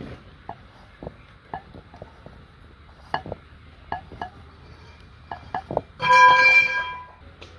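Scattered light taps and clinks of kitchen utensils and dishes as potato patties are coated in batter and vermicelli crumbs. About six seconds in comes a brighter, louder ringing clink that lasts about a second.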